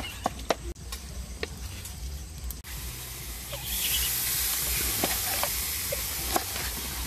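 Knife strokes knocking on a wooden cutting board as green onions are chopped. Partway through, a steady bright hiss sets in, with a few more knife taps over it as a lime is cut.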